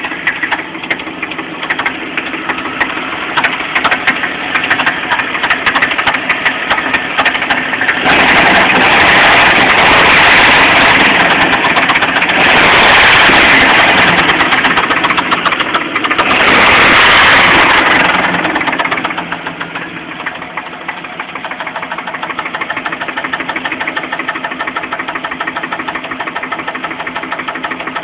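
1998 Jeep Cherokee engine running with a fast, steady knock. It gets louder in three stretches around the middle as it is revved, then settles back to idle. The owner takes the knock for loose flexplate bolts.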